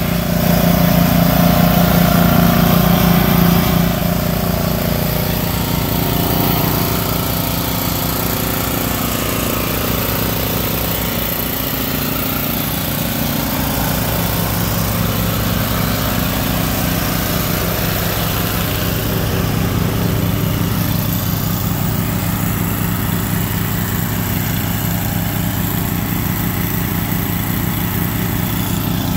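Engine of a parked Craftsman riding mower running steadily, a little louder for the first four seconds.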